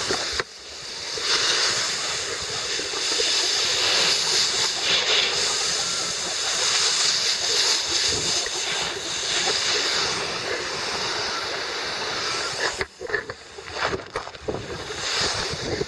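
Garden hose spraying water into a chicken coop, a steady hiss and splatter that turns choppy and uneven for the last few seconds.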